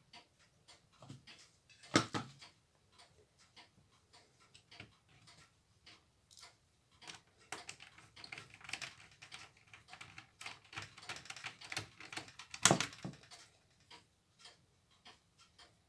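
Small irregular clicks and rattles of hands handling the plastic and metal parts of an opened Shivaki VCR's tape mechanism, with two sharper clicks, one about two seconds in and one near the end.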